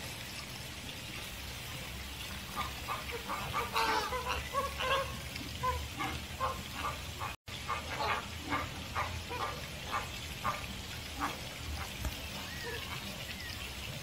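A flock of American flamingos calling: many short, goose-like honks, starting a few seconds in and coming thick and overlapping through the middle.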